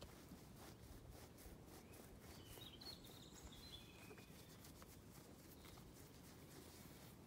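Near silence: faint outdoor ambience with a few faint, high bird chirps about two and a half to three and a half seconds in.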